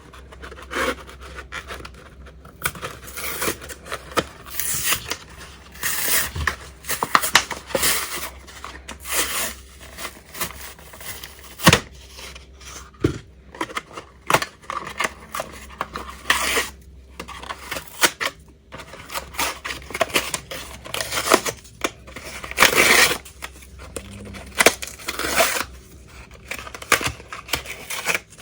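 Toy packaging and hard plastic being handled close up: irregular rustling, tearing and scraping with sharp clicks and taps.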